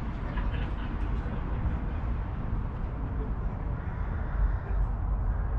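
Indistinct crowd chatter over a steady low rumble, with no single voice standing out.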